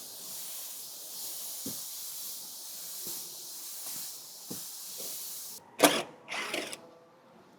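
Steady hiss of suction equipment pumping the old fluid out of a power steering reservoir. It cuts off suddenly about five and a half seconds in, followed by two short loud noisy bursts.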